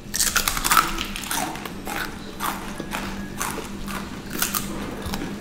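Crispy fried snacks being bitten and chewed close to the microphone: a quick, irregular run of crisp crunches.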